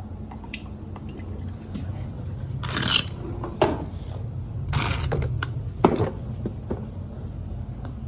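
Dirty water sloshing and splashing in a wet/dry shop vacuum's plastic tank as it is opened and handled, with a few louder splashes or knocks about three, five and six seconds in, over a low steady hum. The water is condensate sucked out of an AC system's drain lines and drain pan.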